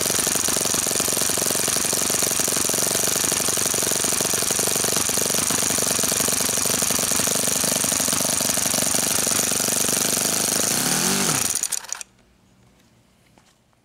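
OS FS-60 four-stroke glow engine idling steadily at about 2,800 rpm, swinging a 13x6 wooden prop. About 11 seconds in it is shut down by hand at the fuel line: the beat slows quickly and stops, and near silence follows.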